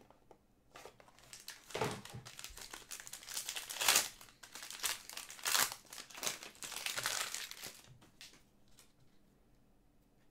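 Foil wrapper of a Panini Prizm Choice trading-card pack crinkling and tearing as it is handled and ripped open, in a run of irregular rustles, the loudest about four seconds in.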